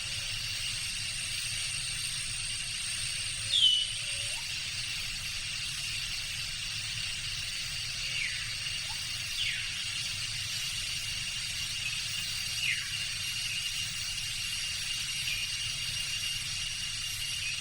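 Tropical jungle ambience: a steady high-pitched insect drone of several held tones, with a few short falling bird chirps. The loudest chirp comes just under four seconds in.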